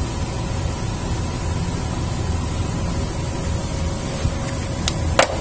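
Steady drone of a ship's engine-room machinery, with a low hum and a few faint steady tones. Two sharp clicks near the end.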